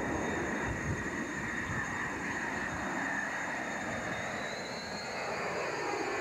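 Aircraft flying a slow, low pass in landing configuration, gear and flaps down: steady engine noise with a high whine that climbs in pitch about four seconds in.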